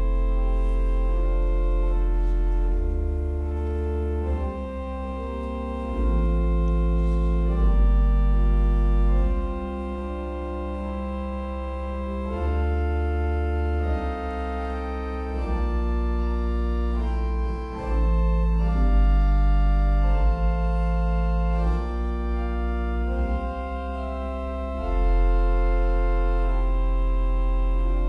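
Church organ playing slow, held chords over a deep pedal bass line, the harmony changing every second or two.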